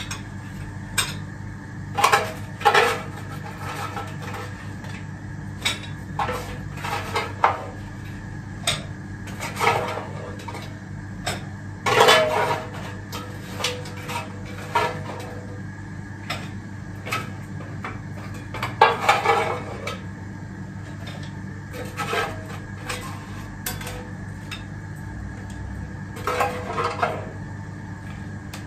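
Dishes and cutlery clinking: about twenty irregular clinks and knocks as food is served from an air fryer basket onto ceramic plates, over a steady hum.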